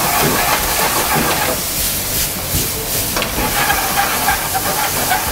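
Pork, bamboo shoots and shiitake sizzling in a frying pan over a gas burner as they are stirred with chopsticks, with a steady hiss of steam just after the liquid seasonings have gone in.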